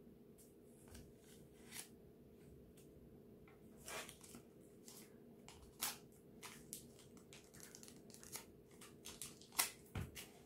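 Faint crinkling and rustling of a small crumpled scrap of paper in a baby's hands, with scattered light taps on the high-chair tray, growing a little busier and louder near the end.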